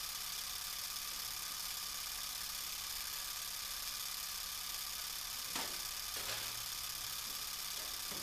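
Steady room tone: an even hiss with a faint low hum. Two faint short sounds come a little past halfway.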